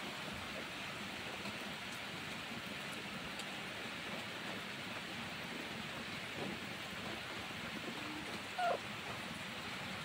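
Steady hiss of rain, with a kitten giving one brief, high mew near the end.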